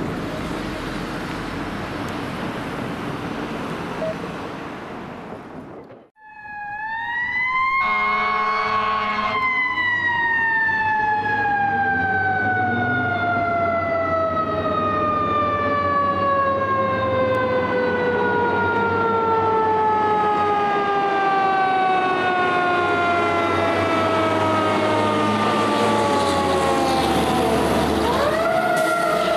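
Fire engine's siren winds up, a horn sounds for about a second and a half, and then the siren slowly winds down over some twenty seconds before starting to wind up again near the end. The truck's engine runs steadily underneath. The first few seconds hold only a steady rush of road noise, which cuts off abruptly.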